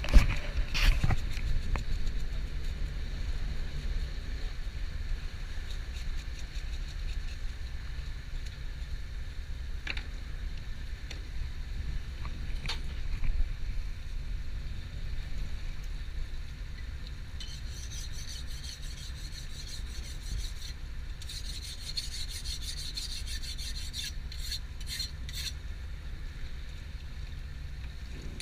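Rasping scrapes of a knife working a fish for butterflying, strongest in the second half, over a steady low rumble of the boat at sea.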